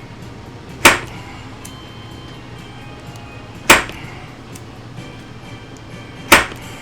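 Three sharp knocks at a steady pace, about two and a half to three seconds apart, with faint ticks between them over a steady low hum.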